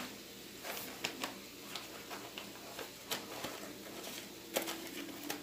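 Scissors snipping open a paper seasoning packet: a few faint, scattered clicks and crinkles.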